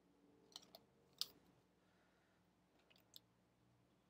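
Faint clicks and ticks of a rigid clear plastic card holder being handled as a trading card is slid into it, a few separate clicks with the loudest about a second in.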